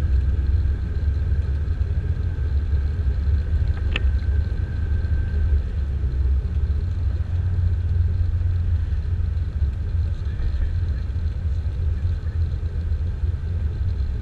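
Steady low rumble of a vehicle driving, heard from inside the cabin: road and engine noise. A single sharp click about four seconds in.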